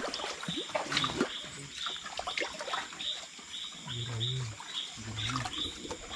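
Animal calls: a short high chirp repeating about two to three times a second, with two low calls about four and five seconds in.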